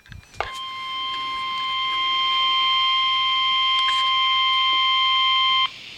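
NOAA Weather Radio warning alarm tone: a single steady 1050 Hz tone held for about five seconds, then cutting off abruptly, the signal that a warning broadcast follows.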